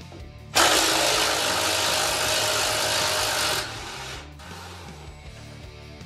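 Hand-held power tool run in one loud, steady burst of about three seconds, spinning out a steering-linkage bolt. It starts about half a second in and cuts off sharply, over background music.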